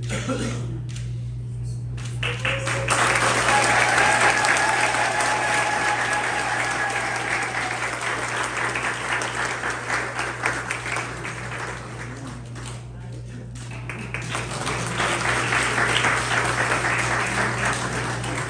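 Congregation applauding in two waves: clapping breaks out about two seconds in, eases off past the middle, and swells again near the end, over a steady low electrical hum.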